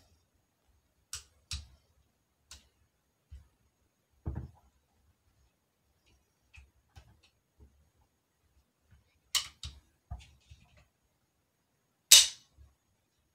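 Scattered metal clicks and a dull knock from an AR-15's freshly reinstalled mil-spec trigger assembly being worked in the lower receiver. A sharp metallic snap about a second before the end is the loudest sound.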